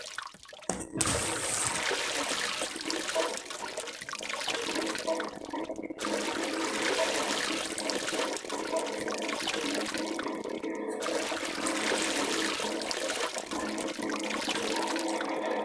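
Stomach growling, a long continuous rumble with brief breaks about six and eleven seconds in.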